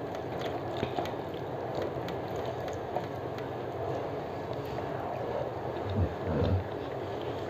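Eating rice by hand: soft clicks of fingers mixing rice and aloo posto on a metal plate, then chewing, over a steady background hiss.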